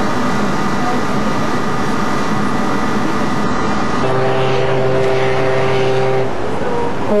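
A steady mechanical drone with rushing noise. About four seconds in it gives way to one long ship's horn blast, a steady low note held for about two seconds.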